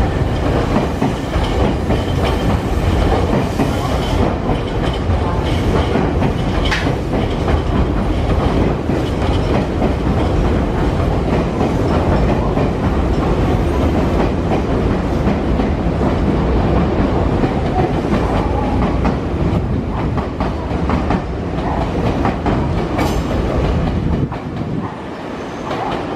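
Nankai stainless-steel electric commuter train running past over points and rail joints, its wheels clacking steadily under a continuous rumble. It gets quieter about two seconds before the end.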